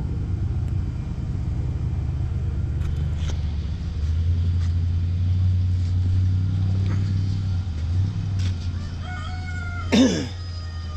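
A rooster crowing loudly near the end, over a steady low hum.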